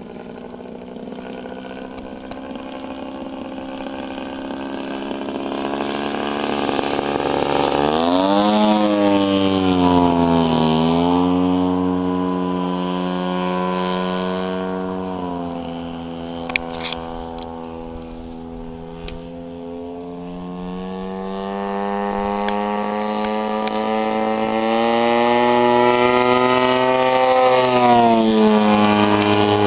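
Engine and propeller of a 33% scale Aeroworks Extra 300 radio-control aerobatic plane running in flight. The drone swells and fades and slides up and down in pitch as the plane manoeuvres, with a sharp drop in pitch about eight seconds in and swells around nine seconds and again near the end. A few brief clicks come just past halfway.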